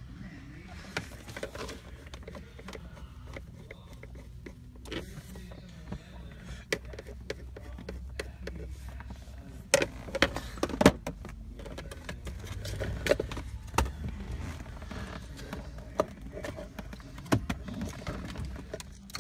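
Plastic dash trim panels being worked loose and handled, giving irregular clicks, snaps and knocks, with a thick cluster of them about ten seconds in. A steady low hum runs underneath.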